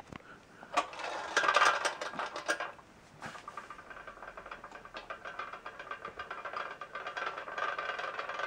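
Tin toy swing-chair carousel: a burst of metallic clicking and clatter in the first couple of seconds, then the toy's drive mechanism running with a steady rattling whirr that grows louder as the carousel spins up and its chairs swing out.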